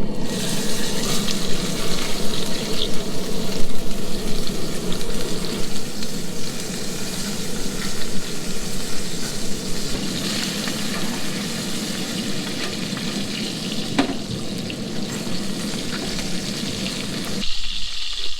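Steak frying with a steady sizzle, and one sharp crack about fourteen seconds in.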